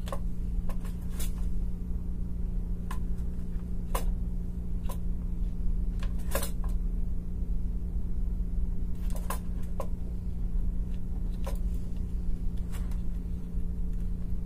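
A steady low electrical hum runs throughout, with scattered light clicks and taps over it.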